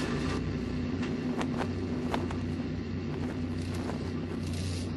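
A steady low mechanical drone with a few low humming tones, broken by scattered sharp clicks.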